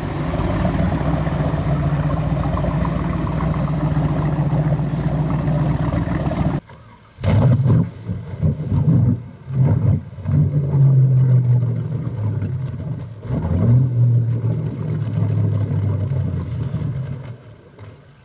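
Baja 240 powerboat's V8 engine running steadily as the boat passes at speed. Then, after a sudden cut, the engine is revved in several short blips and a few longer revs, settling down and fading near the end.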